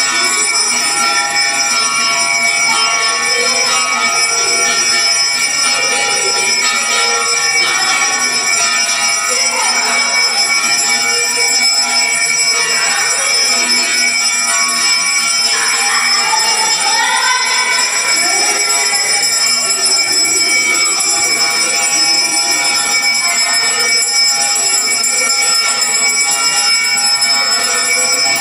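Temple bells ringing continuously for the aarti: a dense, steady metallic ringing that keeps an even level throughout.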